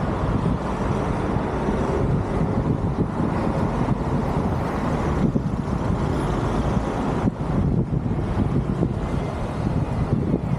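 Road traffic going past: cars and heavier vehicles, heard as a steady, dense low rumble.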